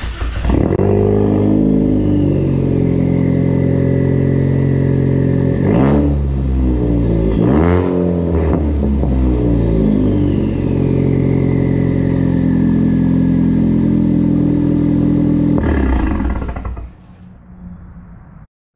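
Ford Focus ST's 2.0 L EcoBoost turbo four-cylinder running through a straight-pipe exhaust with a catless downpipe. It settles into a loud idle, is blipped three quick times around six to nine seconds in, idles again, then cuts off about seventeen seconds in.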